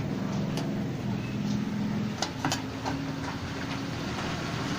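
A few short, sharp clicks of plastic locking tabs being twisted tight on a pedestal fan's blade cap, over a steady low mechanical hum. The loose cap is what was making the fan rattle.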